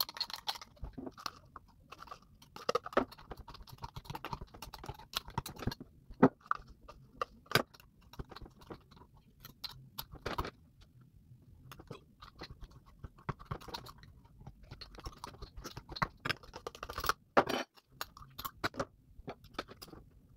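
Metal spoon stirring a thick, gritty brown sugar and coconut oil scrub in a glass jar: irregular crunching and scraping, with sharp clicks where the spoon hits the glass.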